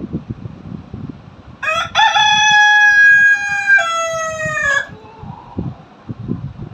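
A rooster crows once, starting about a second and a half in. It is one long call of about three seconds that steps down in pitch for its last second.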